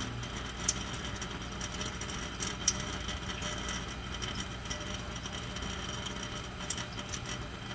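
Steady low mechanical hum with a few light clicks and handling taps, one a little sharper about three seconds in.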